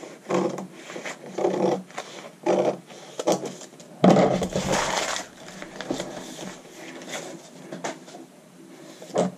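Scissors cutting pattern paper in a few separate snips along a straight edge, then a longer rustle of paper about four seconds in as the cut pieces are handled.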